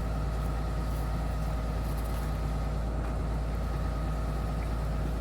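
Hitachi ZX210-5G excavator's diesel engine idling steadily, with a faint steady whine above the rumble.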